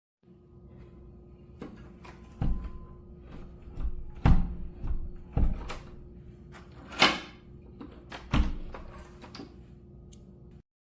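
A door knocking and clunking: a series of thuds and rattles, the loudest about four and seven seconds in, over a low steady hum.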